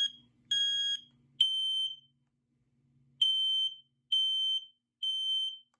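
Firex ADC smoke alarm's horn sounding on its test button: loud high-pitched beeps in the temporal-three pattern, the end of one group of three, a pause of about a second, then three more.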